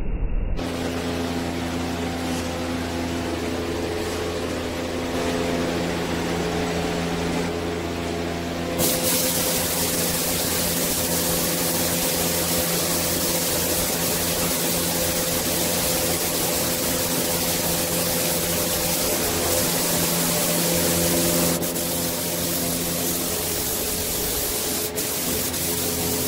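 Gravity-feed paint spray gun hissing steadily as it sprays paint; the hiss comes in about a third of the way in. Under it, a steady pitched machine hum runs throughout.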